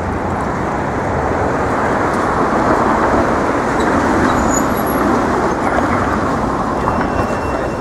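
Street traffic noise, a steady rush of passing vehicles that grows louder in the middle as a vehicle goes by.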